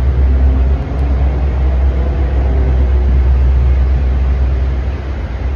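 Pickup truck's engine running in a steady low rumble as it creeps at low speed through a low-ceilinged concrete parking garage.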